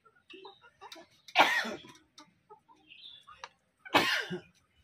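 A person coughing twice, about two and a half seconds apart, with faint clucking of chickens between the coughs.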